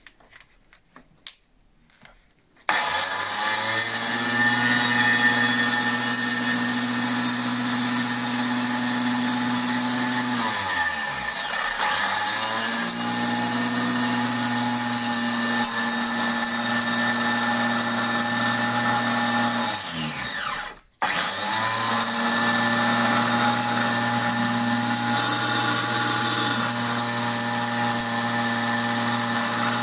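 Angle grinder with a 125 mm disc spinning inside an old enamel pot, shredding spruce twigs into needle meal. It starts a little over two seconds in and runs with a steady high whine. Twice it winds down almost to a stop and spins back up to speed.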